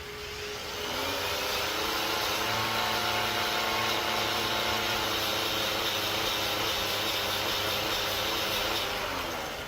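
Electric power tool spinning freely, then pressed into work for about eight seconds: its motor pitch drops and the sound grows louder under load, then it spins back up as the load comes off near the end.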